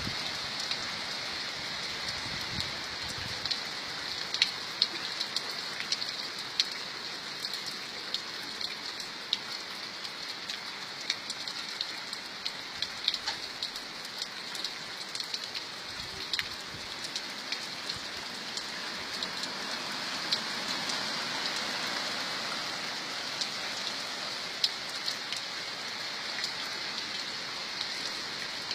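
Steady rainfall, a continuous hiss of rain with many individual drops ticking sharply on a surface, scattered irregularly throughout.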